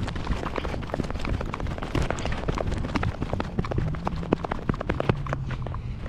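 A person running on dry, gravelly desert ground: a steady train of quick footfalls.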